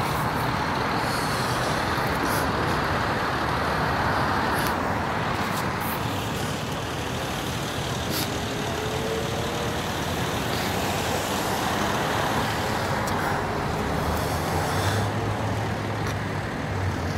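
Steady street traffic noise, with a low engine hum coming in near the end.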